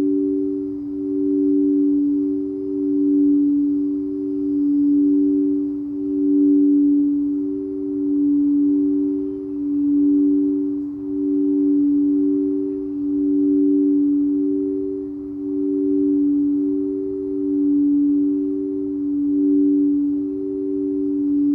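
Singing bowls sounding two sustained, pure ringing tones, one low and one a little higher. The higher tone pulses, and the whole sound swells and fades in a slow, even wave about every second and a half.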